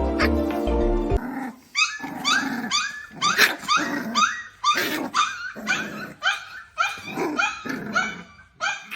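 Small puppy barking repeatedly, about two short high-pitched barks a second, starting just after background music cuts off.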